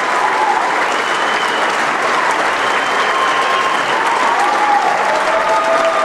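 Large audience applauding steadily in a hall.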